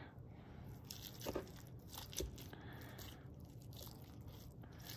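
Two forks pulling apart a smoked pork butt on a wooden cutting board: faint crackling and tearing of the bark and meat, with scattered light clicks and a couple of slightly louder scrapes about one and two seconds in.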